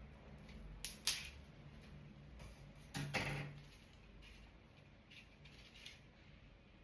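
Small hard objects being handled: two sharp clicks about a second in, a louder knock with a brief scrape around three seconds in, then a few faint ticks.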